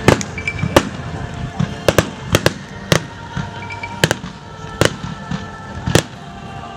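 Fireworks display: an irregular run of sharp bangs from aerial shells bursting, roughly two a second.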